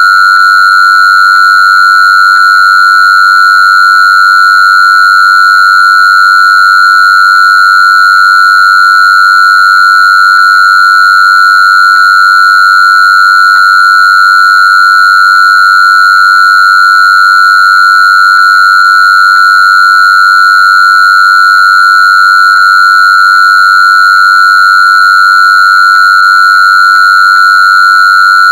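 A loud, steady, high-pitched synthesized tone, held unchanged, with fainter higher overtones: a sound-therapy frequency track.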